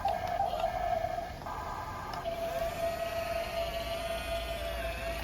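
Small electric motor of an RC toy vehicle whining steadily, its pitch settling slightly lower about two seconds in.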